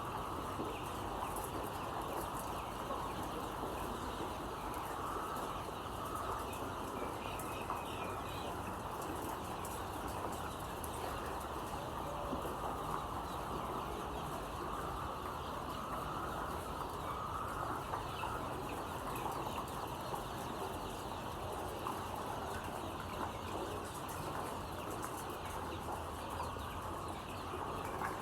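A flock of layer chickens in a poultry shed, many birds clucking and chattering at once in a steady din.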